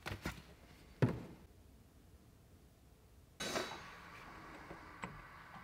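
Quiet handling noises: a few light clicks, a sharp knock about a second in, then a soft rustling hiss from about three and a half seconds in that fades away, with one more click near the end.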